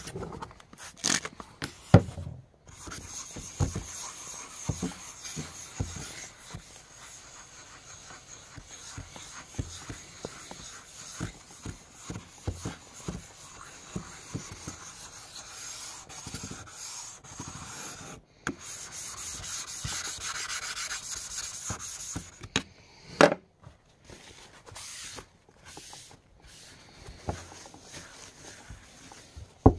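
A small dressing block rubbed back and forth across the face of a whetstone, a continuous gritty scraping that dresses and flattens the stone's surface. It pauses briefly about two-thirds of the way through and resumes, then stops with one sharp knock, followed by a few light handling clacks.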